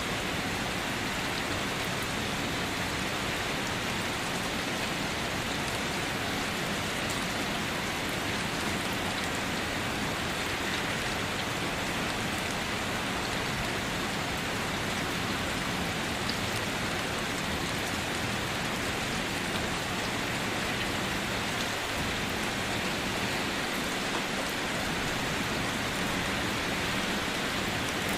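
Steady rain falling, an even hiss of rain on surfaces with no change in level.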